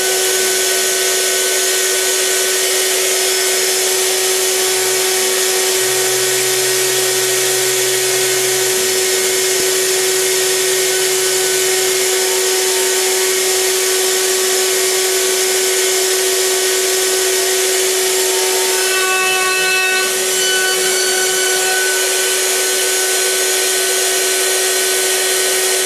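CNC milling machine's spindle driving an end mill through a wooden banjo neck blank on a roughing pass: a loud, steady high whine over the hiss of the cutter chewing wood.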